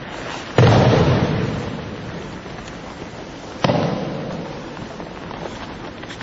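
Two loud slapping thuds, about half a second in and again near four seconds, each dying away in the hall's echo: an aikido student's body and arm striking the foam mat as he takes the breakfall from a kote gaeshi wrist-turn throw and is turned over into the pin.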